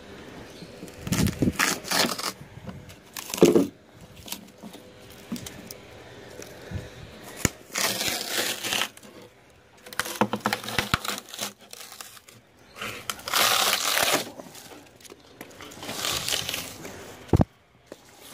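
Rigid foam insulation crunching and tearing as a foam-encased copper refrigerant line is pulled out of a refrigerator's wall, in about six irregular bursts of a second or so.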